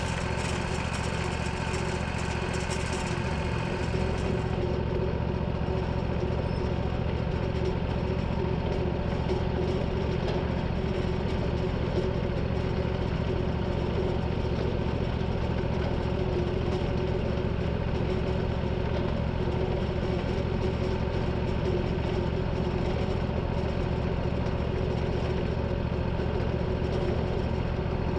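Portable band sawmill's engine running steadily, with a hiss that fades out about three or four seconds in.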